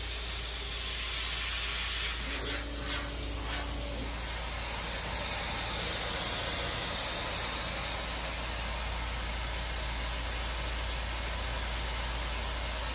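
Steady hiss of air at a CNC plasma cutting table, with a brief low hum and a few faint clicks between about two and four seconds in.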